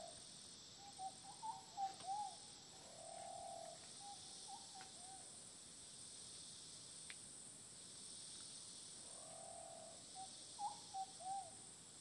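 Rainforest ambience: a steady high insect drone, with two bouts of short, low calls from an unseen animal, each note rising and falling in pitch. One bout comes about a second in and the other near the end.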